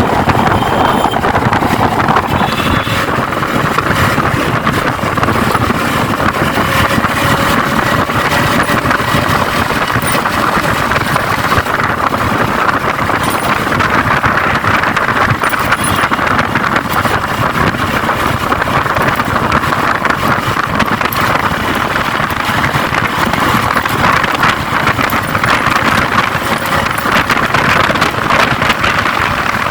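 Motorcycle riding on the road, probably the Yamaha R15: engine running under steady wind rush on the microphone, with road and traffic noise.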